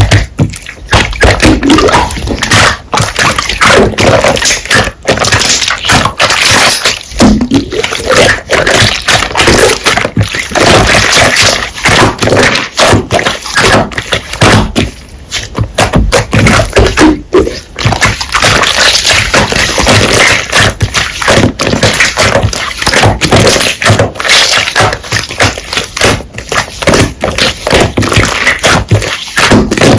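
Slime being squeezed and poked by hand: a dense, continuous run of sticky clicks, pops and squelches.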